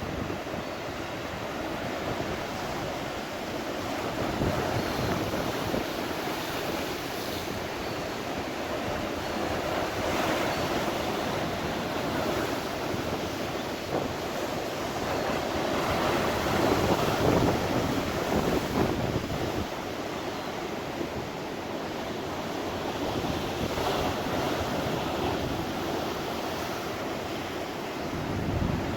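Rough sea with heavy surf breaking and rushing, and wind buffeting the microphone. The surge of the waves rises and falls, loudest from about sixteen to eighteen seconds in.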